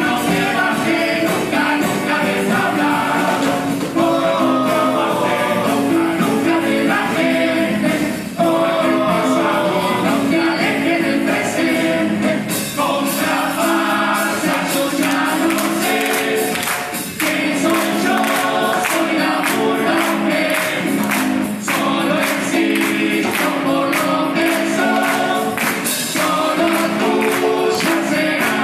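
Uruguayan carnival murga chorus singing its despedida (farewell song) in harmony over drum and cymbal accompaniment, the percussion coming forward about halfway through.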